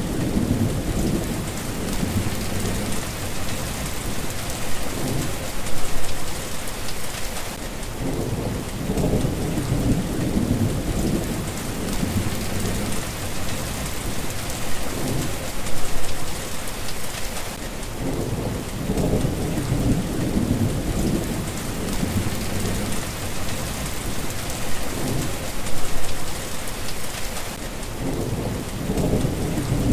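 Steady rain falling, with low rolling thunder rumbles that swell and fade about every ten seconds.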